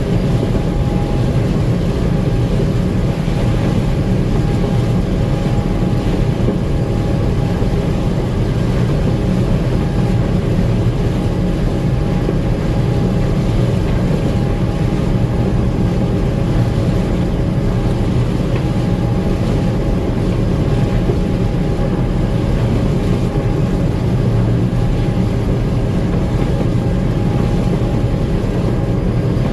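Gleaner M2 combine running steadily under way: a constant heavy engine and machinery drone with a thin steady whine above it, heard from inside the cab.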